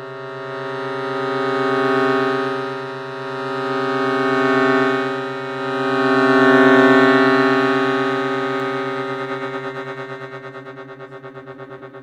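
Piano accordion holding low notes in its extreme low register on one long draw of the bellows. The notes swell and ease three times, then fade out with a fast wavering pulse near the end.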